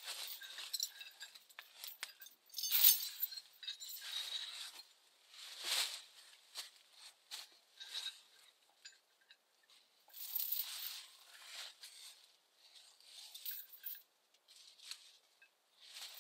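Dry leaf litter and brush rustling and crunching in irregular bursts as a person moves and handles brush on the ground, with one sharper crackle about three seconds in.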